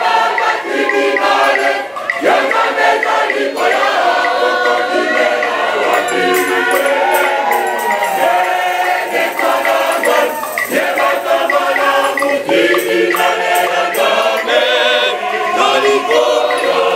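Church choir singing loudly in harmony, many voices together, with hand percussion keeping a beat.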